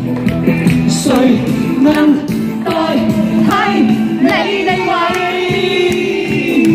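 Singer performing a classic Cantonese pop song over musical accompaniment, with long, wavering held notes.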